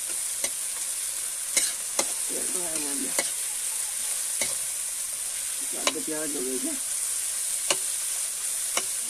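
Sliced onions sizzling in hot oil in a metal karahi, stirred with a spatula that clinks and scrapes against the pan every second or so as the onions fry soft.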